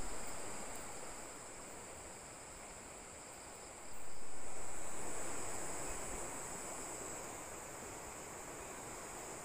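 Swollen, fast-flowing river in flood, its water rushing in a steady noise that jumps louder about four seconds in.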